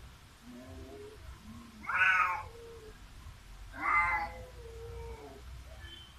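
Two cats facing off and yowling at each other: loud, wavering yowls about two seconds in and again about four seconds in, with lower, drawn-out moans between them.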